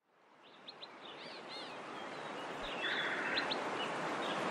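Outdoor ambience fading in from silence: a steady hiss with birds chirping, and a short rapid trill about three seconds in.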